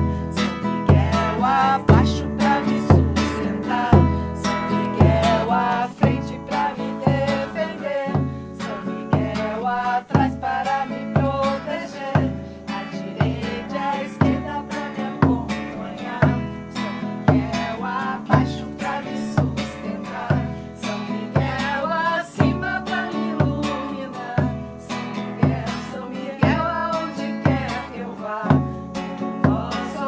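Women singing together to a strummed acoustic guitar, with a hand drum keeping a steady low beat about once a second.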